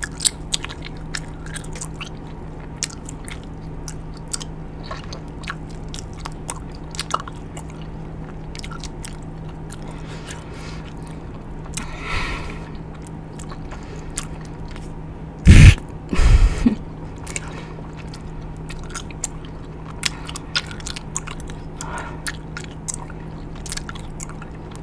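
Close-miked chewing of a mouthful of Big League Chew shredded bubble gum: wet smacking and frequent small clicks over a steady low hum, with two louder pops a little past halfway.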